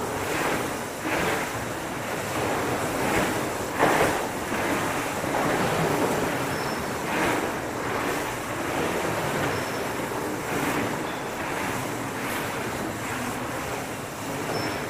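Mountain bike being ridden, heard from a camera carried on the ride: a steady rush of tyre noise and air over the microphone, broken by a few bumps, the loudest about four seconds in.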